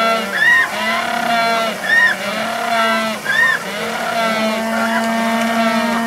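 Humboldt penguins braying in chorus, the ecstatic display call: loud, repeated brays, with a rising-and-falling note about every second and a half over a long steady held tone.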